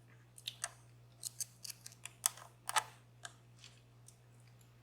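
Small metal clicks from lock picks worked against a DOM Plura lock: about a dozen sharp, irregular clicks over three seconds, the loudest near the middle.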